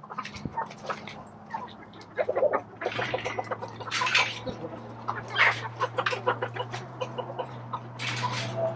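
A flock of chickens clucking, with many short calls coming in quick succession and overlapping.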